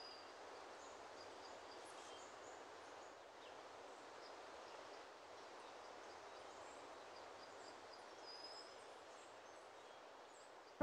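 Near silence: a faint, steady ambient hiss with a few faint, brief high chirps scattered through it.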